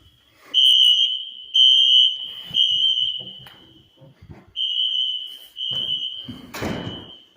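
Wheelock fire alarm horns blaring a steady high-pitched tone in groups of three blasts with a short pause between groups, the temporal-three evacuation pattern, echoing in a hallway. It is a false alarm, likely set off by burnt-food smoke. About six and a half seconds in there is a short, loud burst of noise, such as a thump or a door.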